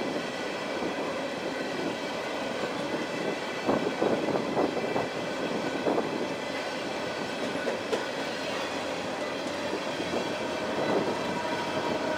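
Union Pacific freight train of covered hopper cars rolling past: a steady rumble of steel wheels on rail, with a few irregular clacks as wheels cross rail joints and a faint steady high whine over it.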